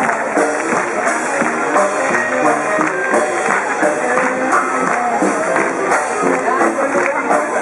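Dixieland jazz band playing live on a parade float, sousaphone among the instruments, with a steady beat under the melody.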